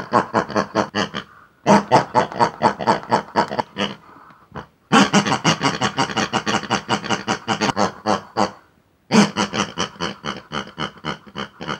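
Rapid pig-like gibberish chatter voiced for two toy pig hand puppets, in four runs of a few seconds each with short pauses between.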